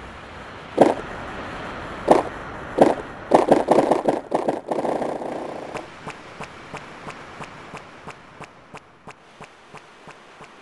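Dubbed-in knocking sounds: three separate knocks, then a quick clattering run of knocks, then evenly spaced sharp taps, about three a second, that grow steadily fainter.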